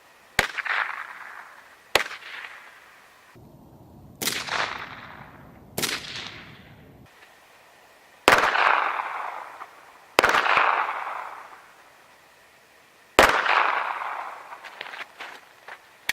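Firearm shots fired one at a time from the prone position, about seven in all at uneven intervals, each with a sharp crack and a trailing echo. The last few are the loudest.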